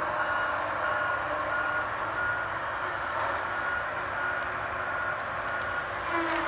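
A hot-saw feller-buncher running steadily, with short high beeps repeating every half second or so.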